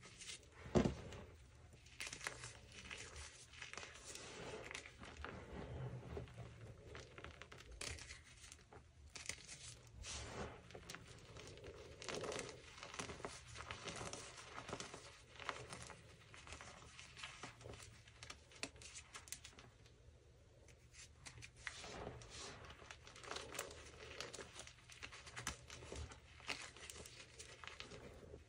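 Hands squeezing and crumbling chunks of Friction Labs gym chalk: a dense, irregular run of soft crunches and crackles, easing briefly about two-thirds of the way through.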